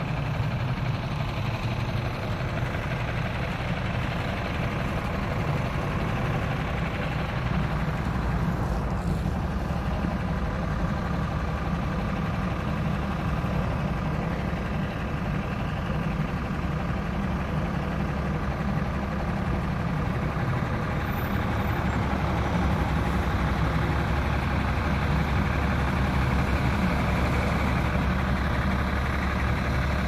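Strong wind in a snowstorm, rumbling on the phone's microphone, over a steady noise of road traffic. The wind grows a little stronger near the end.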